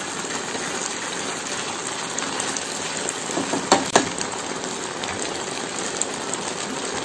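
Chilli chicken in a cornflour-thickened sauce sizzling and bubbling steadily in a frying pan over high flame, the liquid reducing and thickening. A wooden spatula stirring against the pan gives a few clicks about halfway through.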